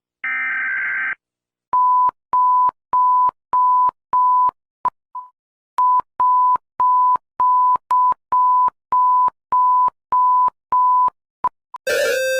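Electronic emergency alert signal: a brief harsh tone, then a long run of identical high beeps about one and a half a second, broken once by a couple of short pips. Near the end a different alert begins, a two-pitch pattern alternating high and low.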